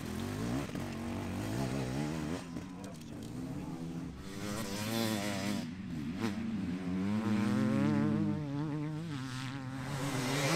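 Enduro dirt bike engine revving, its buzzing pitch rising and falling again and again as the rider works the throttle.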